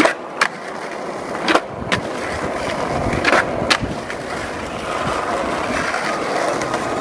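Skateboard wheels rolling over stone plaza paving, a steady grinding rumble broken by several sharp clacks of the board, a few of them close together in the first half.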